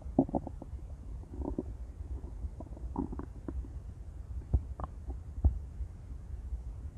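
Stomach growling and gurgling: a low steady rumble broken by clusters of short gurgles and pops. The loudest pops come about four and a half and five and a half seconds in.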